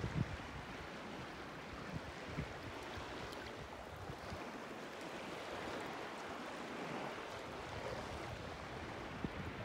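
Small waves washing on a sea shore, with wind buffeting the microphone in low gusts around the start and again near the end.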